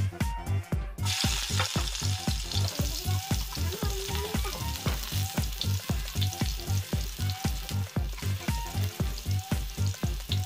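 Minced garlic dropped into hot cooking oil in a wok about a second in, then sizzling steadily as it sautés. Background music with a steady beat under it.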